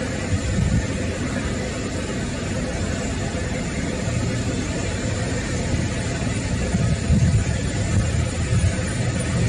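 Boeing 737-800's twin CFM56 jet engines at takeoff thrust as the airliner starts its takeoff roll: a steady, loud low rumble.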